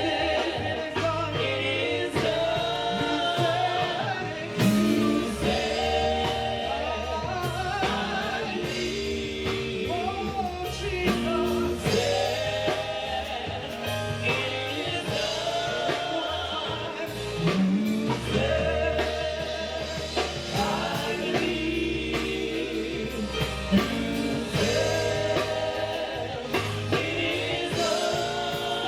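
A gospel praise team singing with a live band: voices in several parts over bass, keyboard and drums, a steady beat throughout.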